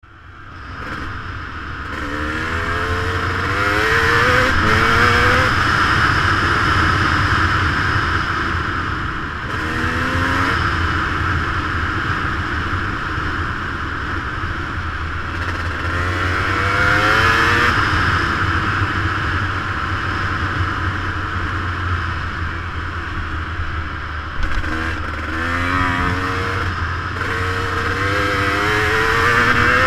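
Yamaha YZ250 two-stroke dirt bike engine revving hard under way, its pitch climbing in repeated rises as it pulls through the gears. Wind rushes over the microphone.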